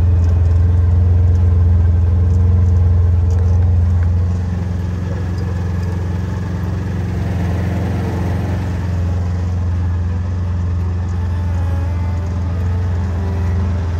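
Vehicle engine running with a steady low hum, heard from inside the vehicle; the level drops a little about four seconds in.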